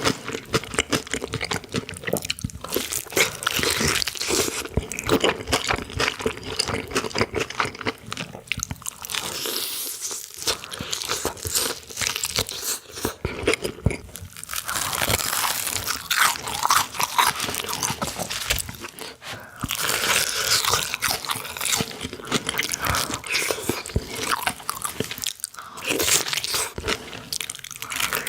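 Close-miked mukbang eating: a person takes crunchy bites and chews, with many crisp crackling crunches in quick succession.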